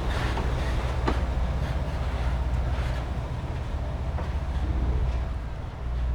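Diesel train of the Kominato Railway moving slowly, a steady low engine hum with a few sharp wheel clacks over rail joints.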